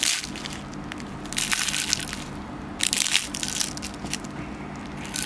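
Crisp, flaky baked yufka börek crackling as a finger presses into its layered top crust and breaks it, in about three crunchy bursts. The crackle shows the pastry is baked properly crisp (çıtır çıtır).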